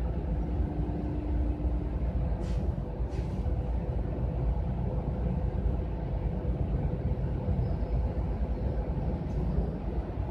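City bus engine idling, a steady low rumble heard from inside the bus, with two short hisses about two and a half and three seconds in.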